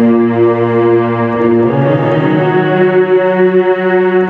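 Roland E-X50 arranger keyboard playing full, sustained chords, the chord changing about halfway through.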